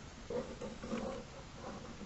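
Pencil strokes scratching across paper in short, uneven bursts as a figure is quickly sketched.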